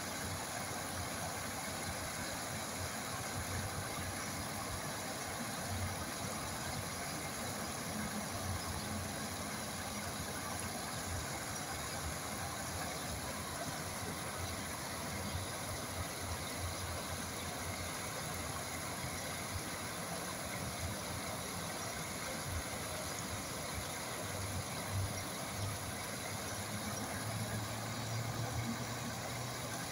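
Flowing water making a steady, unbroken rushing sound.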